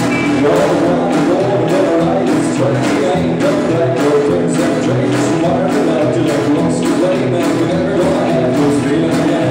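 Rockabilly band playing live on acoustic guitar, electric guitar and upright double bass, with a steady beat.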